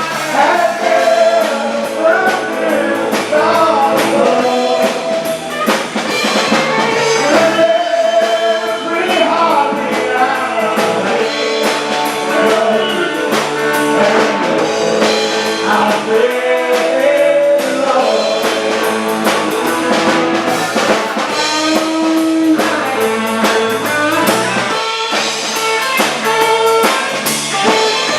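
Live band playing rock-and-roll, with a lead vocalist singing over guitar and drums.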